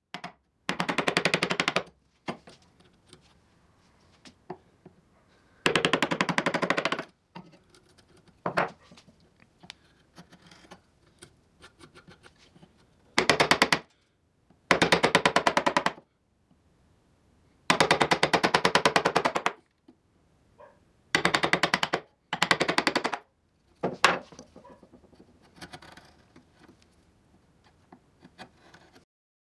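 Bench chisel chopping and paring wood, heard as bursts of rapid clicking taps, each a second or two long, about seven times, with faint scattered ticks between them.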